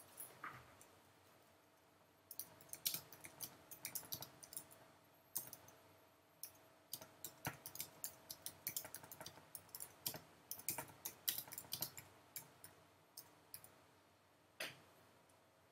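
Computer keyboard being typed on in quick, irregular runs of keystrokes, with short pauses between words, then a single louder click near the end.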